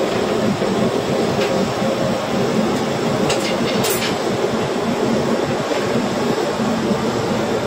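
Gas blowtorch flame burning steadily as it heats a cane rod, a continuous rushing noise. A few faint clicks about three to four seconds in.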